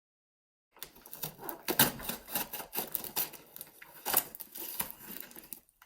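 A postal package being torn open: irregular ripping and rustling of packaging, with two louder rips about two and four seconds in.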